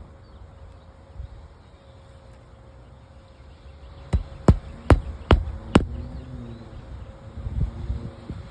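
Five sharp knocks in quick succession, about two and a half a second, starting about four seconds in, over a faint steady hum.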